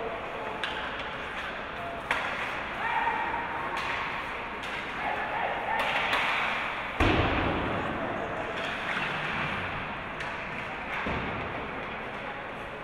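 Ice hockey game play: scattered sharp clacks and knocks of sticks and puck, with one heavy thud about seven seconds in, over a background of voices and shouts.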